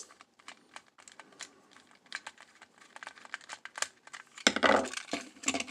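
Plastic toy-train parts being handled: irregular light clicks and taps as the Plarail sound unit is picked up and turned over, with a louder rattle of handling near the end.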